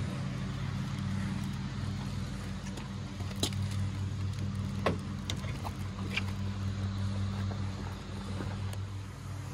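Chenille microfiber wash mitt wiping across a soapy truck panel, over a steady low hum of a running motor, with a few faint clicks.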